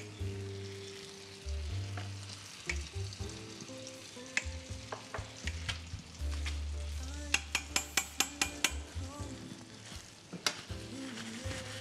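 Brioche frying in butter in a pan, an even sizzle, under background music with held bass notes. A quick run of sharp clicks comes about seven to nine seconds in.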